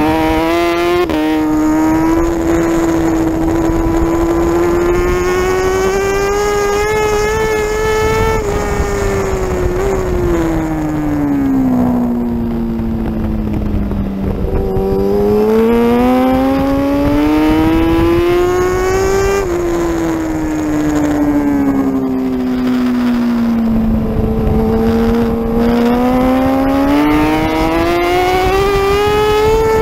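Racing superbike engine at high revs, heard from a camera mounted on the bike. The engine note climbs through the gears, falls twice as the rider brakes and shifts down for corners, about halfway through and again about four-fifths of the way in, then climbs again toward the end.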